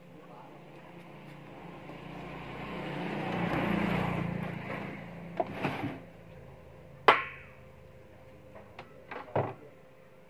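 Handling sounds at an electric rice cooker: a rush of noise swells and fades over the first six seconds, then a sharp click about seven seconds in and a few light knocks on the cooker.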